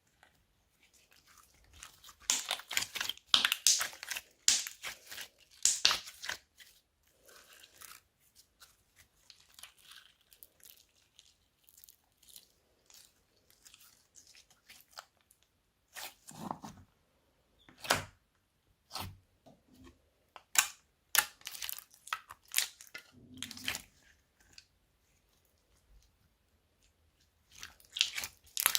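Glitter slime being mixed and squished by hand, giving sticky crackles and pops: a dense run of crackling a few seconds in, then scattered single pops and short crackles.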